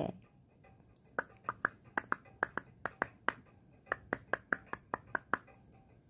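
A rapid series of light, sharp clicks, about five a second, in two runs with a short break between.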